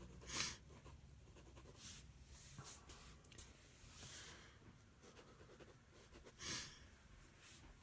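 Faint scratching of a pen drawing on paper in short, separate strokes, with a slightly louder stroke about half a second in and another about six and a half seconds in.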